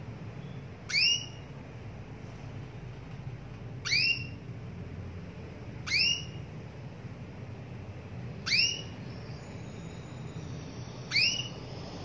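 Female domestic canary giving short, rising call notes, five times, each two to three seconds apart: the call a hen canary uses to call a male.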